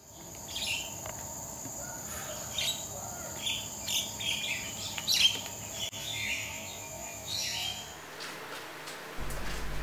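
Birds chirping repeatedly over a steady, high-pitched insect drone; the chirping and drone stop about eight seconds in.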